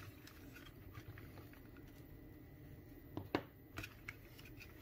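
Plastic headphone earcup parts being handled: a few light clicks and taps, the loudest about three and a half seconds in, over low room noise.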